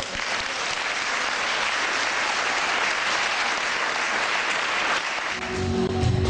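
An audience applauding: a steady spatter of many hands clapping. Music comes back in near the end.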